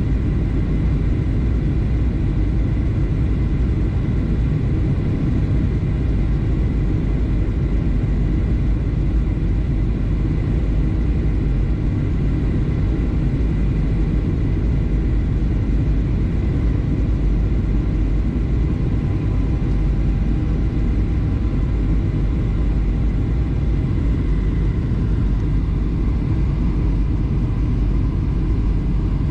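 Steady cabin noise inside a jet airliner on approach: a low rumble of engines and rushing air, with a faint steady high whine.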